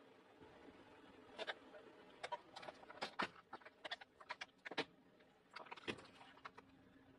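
Plastic jars filled with water beads cracking and popping under a car tyre: a quick, irregular run of sharp cracks and crunches, densest in the middle, that thins out near the end.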